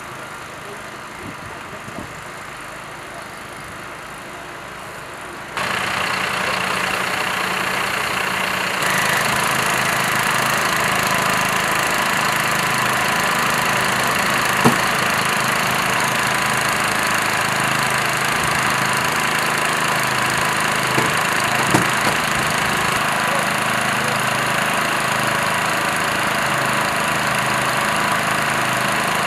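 An engine running steadily at a constant speed, getting suddenly louder about six seconds in and again a few seconds later, with a few short knocks in the middle.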